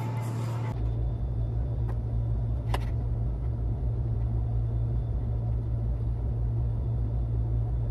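A steady low rumbling hum of room machinery, with a single short tick about two and a half seconds in.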